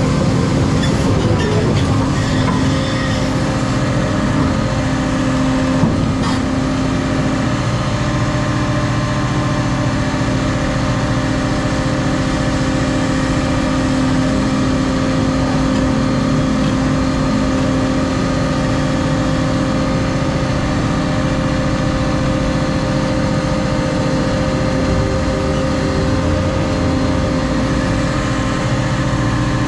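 Caterpillar 335 Next Gen excavator's diesel engine running steadily, with a single sharp knock about six seconds in.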